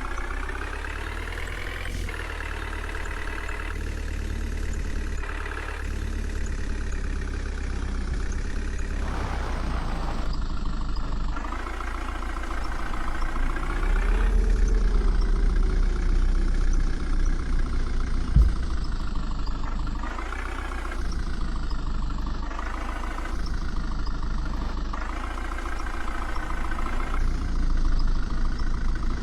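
Diesel engine of a JCB 3DX backhoe loader running and revving up and down again and again as it works its digging and loading hydraulics. A single sharp knock about two-thirds of the way through.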